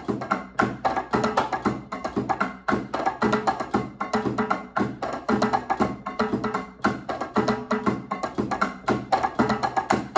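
Electronic drum kit played with sticks in a steady, fast Latin-style groove: a dense run of crisp percussion hits, with wood-block-like strikes over the drum sounds.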